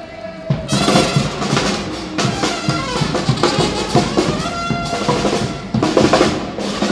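Street parade band of drums and brass horns playing, coming in loudly about half a second in with heavy drum beats under held horn notes.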